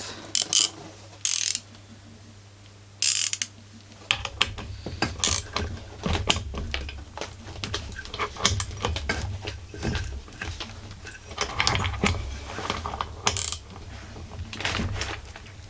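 Ratchet handle clicking in quick, uneven runs on a 15 mm socket as the centrifugal drum clutch of a chainsaw is tightened, with a few separate clicks and knocks in the first seconds before the ratcheting starts.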